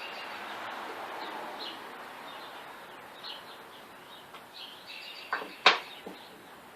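Birds chirping in the background over a faint hiss, with three knocks about five to six seconds in, the middle one sharp and loud.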